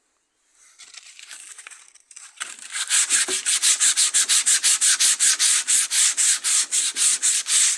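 Sandpaper rubbed by hand on weathered iroko wood: light rubbing at first, then from about two seconds in fast, even back-and-forth sanding strokes, about five a second.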